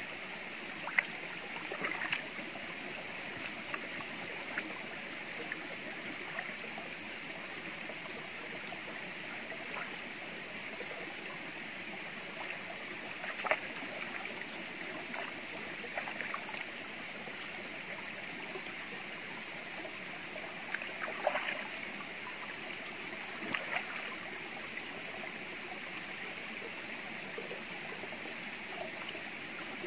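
Shallow stream running steadily over rock, with a few short splashes and knocks as hands and a knife work in the water.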